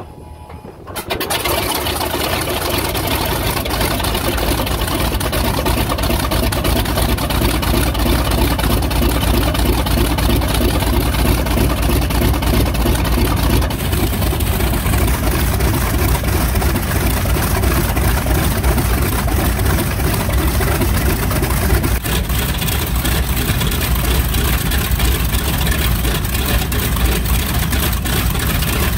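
Wright R-2600 fourteen-cylinder radial engine of a B-25J Mitchell catching about a second in after being cranked by its inertia starter, then running steadily and loud. About 22 seconds in it settles back to idle.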